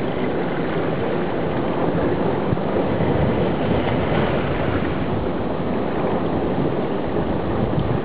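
Steady, muffled rumble of moving water and surf, heard through the housing of an underwater camera submerged in a rock pool.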